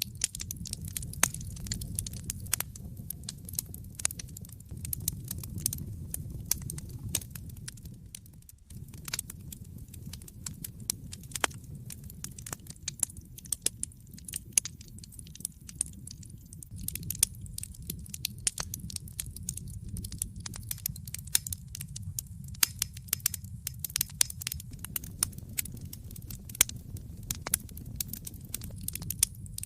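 Wood fire crackling in a fireplace: irregular sharp snaps and pops over a steady low rumble of burning, with a momentary hush about eight and a half seconds in.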